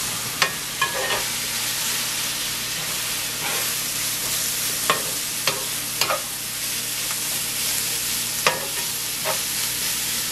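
Riced cauliflower frying in a hot pan as it is stirred: a steady sizzle, broken by a few sharp knocks and scrapes of the stirring utensil against the pan.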